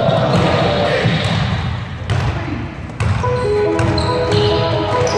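Basketball bouncing on a gym floor, with thuds from the play. From about three seconds in, music with long held notes plays over it.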